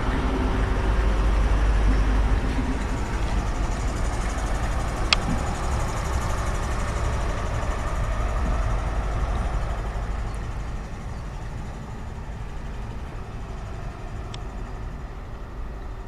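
Train rumbling at the platform, its low engine and rail noise fading over the last few seconds as it draws away, with one sharp click about five seconds in.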